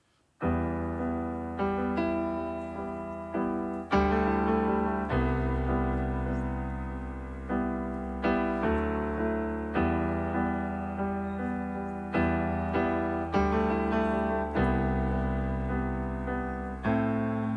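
Solo piano played on a stage keyboard: a slow introduction of struck chords over held low bass notes, a new chord every second or two, each fading until the next. It starts about half a second in.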